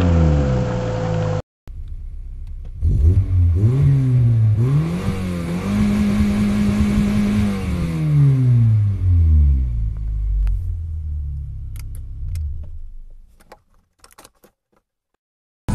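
A VW Vento's 1.8 four-cylinder engine (AAM) revved while stationary, heard from inside the cabin. First a rev falls away and cuts off abruptly; then the engine is blipped a few times, held steady at high revs for a couple of seconds and let fall back to idle. It is then switched off, with a few faint clicks before silence.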